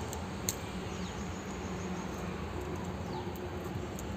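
Outdoor background ambience: a steady low hum and hiss, with a few faint, short bird chirps falling in pitch and a single click about half a second in.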